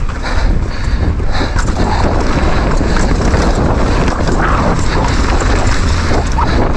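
Wind buffeting the microphone of a camera riding on a downhill mountain bike at speed, a steady low rumble, with rapid knocks and rattles as the bike's tyres, suspension and frame hammer over rough, rocky trail.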